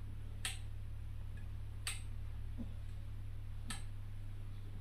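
Three sharp clicks, irregularly spaced about a second and a half apart, from a click-stop control being turned on the illumination head of a Zeiss OPMI Lumera 300 surgical microscope as the aperture or filter setting changes. A steady low hum runs underneath.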